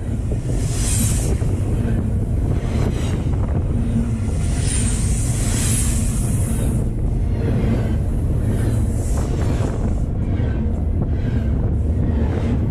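Double-stack container freight cars rolling past close to the rails: a steady heavy rumble of steel wheels on track with repeated clacks, and a couple of brief high-pitched screeches. Wind is also heard on the microphone.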